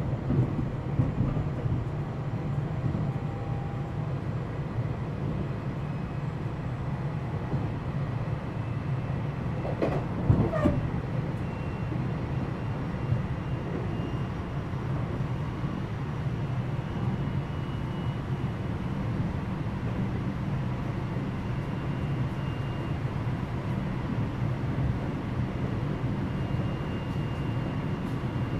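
Interior running sound of a JR West 227 series electric train, recorded in the motor car KuMoHa 227-68, travelling at speed: a steady low rumble of wheels on rail. There is a brief louder rattle about ten seconds in, and a faint high whine from about twelve seconds in.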